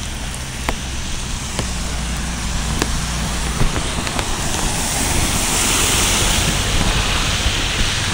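A car driving through a flooded street: its engine runs low while its tyres hiss through the standing water, the hiss swelling as it passes about six seconds in.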